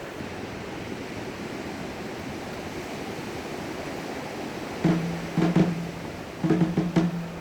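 Steady wash of ocean surf. About five seconds in, background music comes in with sharp drum hits over a low, steady bass note.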